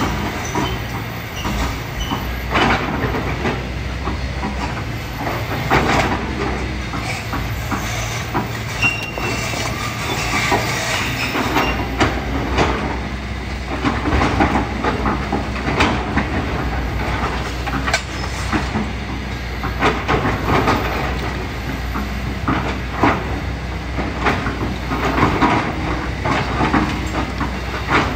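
Kobelco SK200 excavator's diesel engine running steadily under load, with irregular clanks, rattles and scraping as the bucket digs through sand, gravel and rocks.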